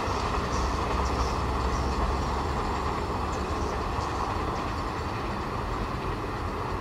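Passenger train rolling away along the track, a steady rumble and rail noise slowly fading as it recedes.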